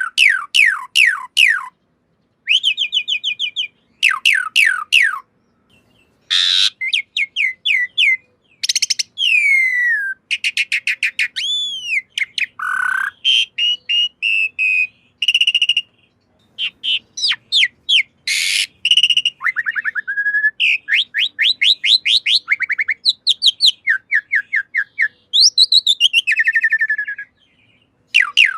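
Javan pied starling (jalak suren) song: a long, varied string of loud whistled phrases, with quick series of falling notes, swooping glides, trills and rapid chattering, broken by a few short pauses.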